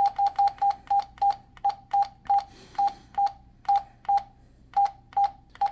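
Anytone 578 DMR mobile radio's key beeps, one short, identical beep for each step through its menu. They come about five a second at first, then slow to about two a second.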